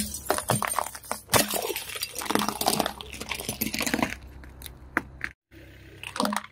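Liquid-filled glass flasks cracking and shattering one after another under a car tyre: a fast run of sharp cracks and crunches of breaking glass over the first four seconds or so.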